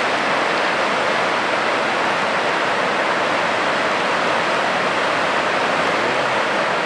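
Lava Falls, a large whitewater rapid on the Colorado River, rushing steadily as an even, unbroken wash of water noise.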